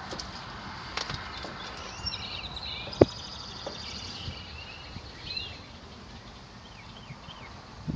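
Scattered small clicks and knocks of hands working on car speaker wiring in a dashboard, with one sharp click about three seconds in. Birds chirp in the background.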